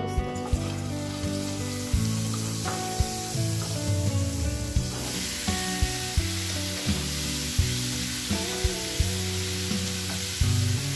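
Oil sizzling in a frying pan as it is stirred with a wooden spoon. About five seconds in, cut arracacha is added, and the frying grows louder.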